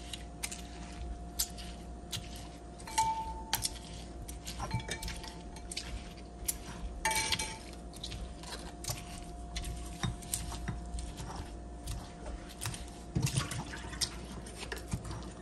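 Stone pestle pounding and grinding green vegetables in a heavy stone mortar: irregular knocks and wet crushing, with a few short ringing clinks.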